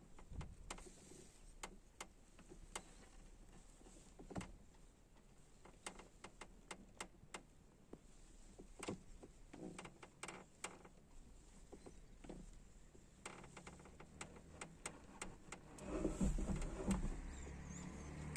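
Short, irregular creaks and clicks from the driver's side B-pillar of a 2014 Renault Fluence as the pillar is rocked. The owner suspects body panels or a poorly welded seam working against each other. About sixteen seconds in, louder handling noise joins the creaks.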